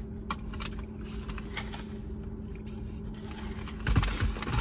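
Soft rustling and scraping of takeout food packaging being handled, with scattered small clicks, over a steady low hum in a car's cabin; a louder low bump about four seconds in.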